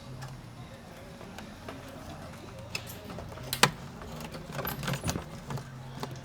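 Small clicks and knocks of plastic fuel pump module parts being handled and fitted together, with one sharp click about three and a half seconds in and a flurry of smaller clicks a second later, over a steady low hum.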